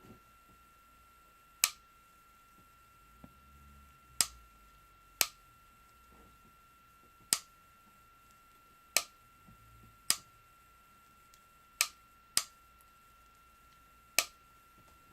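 Nine sharp single clicks at irregular intervals, about one to two seconds apart, over a faint steady high-pitched tone.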